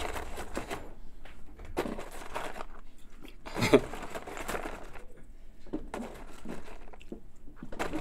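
Soft, scattered rustles and small clicks of popcorn being handled in paper popcorn boxes, with one louder short sound about three and a half seconds in.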